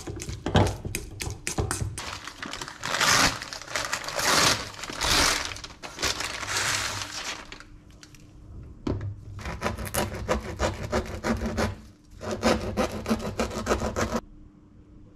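Kitchen handling sounds: a utensil stirring egg salad in a metal bowl with quick clicks, then a paper bag rustling loudly as a baguette is taken out. From about nine seconds in, a knife saws through the crusty baguette on a wooden board in quick crackling strokes, stopping abruptly near the end.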